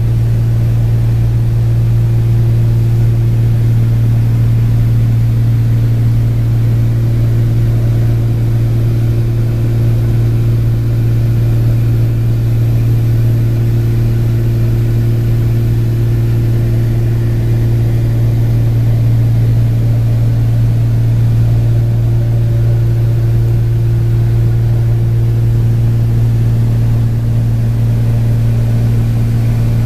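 Cabin drone of a Cessna 402's twin piston engines and propellers in cruise flight: a loud, steady, deep hum that holds an even pitch throughout.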